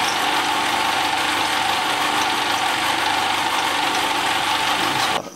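Milling machine running with an end mill taking a spring cut along a bronze wear strip: a second pass at the same setting to clean off what the cutter's deflection left. Steady cutting noise with a continuous whine underneath, cutting off suddenly near the end.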